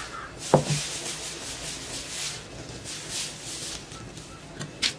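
Ladle rubbing and scraping in circles over a dosa tawa as lentil dosa batter is spread thin, the sound swelling and fading with each stroke. A sharp knock about half a second in, and a short click near the end.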